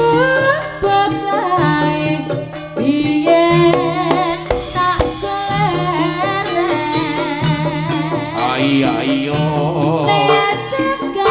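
Live jaranan sentherewe music: drums keep a steady beat under a melodic lead line that wavers in pitch through the middle.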